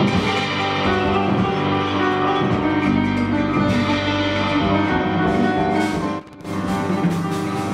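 Live ensemble music led by a plucked oud over sustained lower tones. The music cuts out for a split second about six seconds in, then comes back in.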